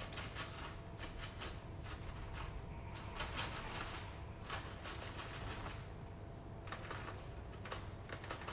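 Plastic bag of soft brown sugar crinkling and rustling as it is tipped and shaken to empty the sugar into a glass bowl. The crackles are faint and come in irregular clusters.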